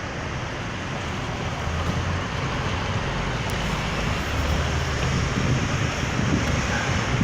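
Road traffic noise: a steady rumble of passing vehicles that slowly grows louder.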